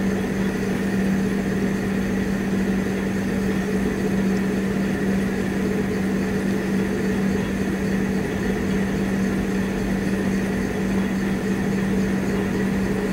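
Steady mechanical hum, like a motor running, with one strong low tone that holds unchanged throughout.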